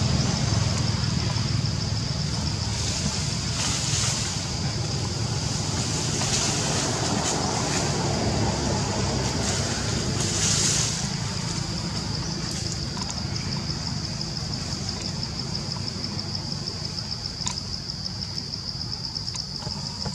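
Steady high-pitched insect drone with a fast pulse, typical of forest cicadas, over a low rumble. A brief louder rustle of leaves and branches comes about ten seconds in.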